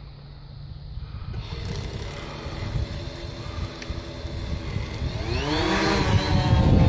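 Quadcopter's electric motors and propellers spinning up for take-off, a whine that rises in pitch and grows louder as it lifts off, over low wind rumble on the microphone.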